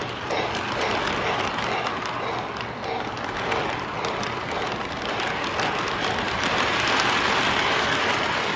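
Lionel model train cars rolling past close by on three-rail track: a steady, dense rattling clatter of wheels with fine clicks at the rail joints, growing louder toward the end as the last cars and the caboose pass.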